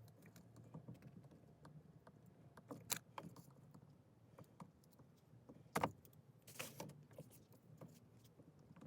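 Faint scattered clicks and scrapes of a small plastic pry tool working at the BMW i8 gear selector's front trim plate, which shifts side to side without coming loose. The clearest clicks come about three and six seconds in.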